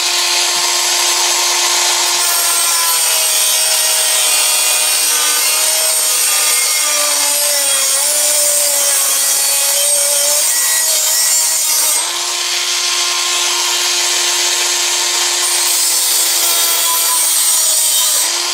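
Air-operated muffler cut-off tool with a small reinforced abrasive disc cutting thin sheet steel: a steady high whine from the air motor over the hiss and grinding of the disc. The pitch sags and wavers for a few seconds midway as the disc is loaded in the cut.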